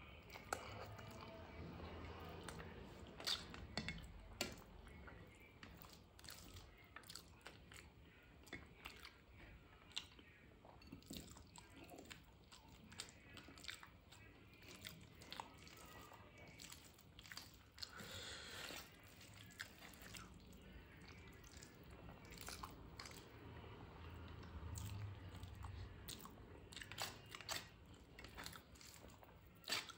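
Close-miked chewing and mouth sounds of a person eating rice and dal by hand, with scattered wet clicks and smacks and soft squishes of fingers mixing food on the plate.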